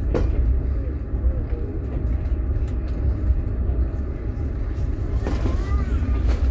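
Inside a moving platzkart sleeper carriage: the train runs with a steady low rumble from the wheels and carriage, with a sharp click at the start and faint voices in the background.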